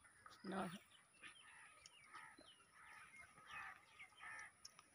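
Near silence with faint bird calls: a short call about half a second in, then scattered soft calls and chirps, a few with quick pitch glides.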